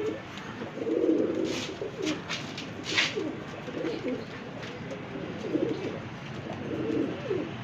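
Domestic pigeons cooing over and over in a loft: low, wavering, rolling calls, with a couple of short sharp clicks in between.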